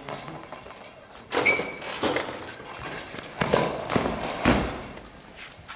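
A goalball, a rubber ball with bells inside, thrown and bouncing and rolling across a hard sports-hall floor. Several sharp thuds come from its bounces and from players dropping onto the floor to block it.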